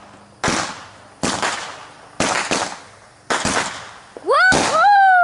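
Consumer fireworks going off: a string of sharp bangs about a second apart. Near the end a whistling firework gives a loud shriek that shoots up in pitch, then slowly falls.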